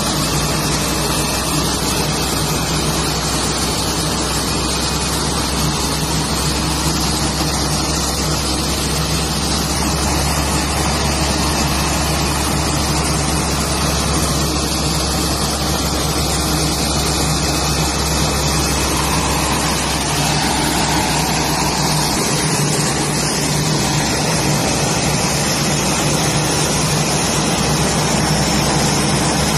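Aircraft pushback tug's engine running steadily at work, a constant low hum under an even rushing hiss.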